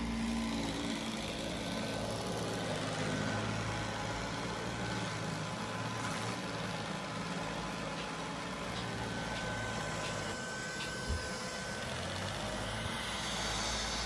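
Neato robot vacuum running while it cleans a fabric sofa seat: a steady whirr of its suction fan and brushes, with one brief knock about three-quarters of the way through.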